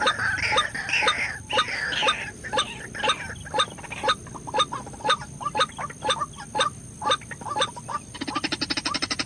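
White-breasted waterhen calling: short, harsh clucking notes repeated about twice a second, breaking into a fast, even run of pulsed notes near the end.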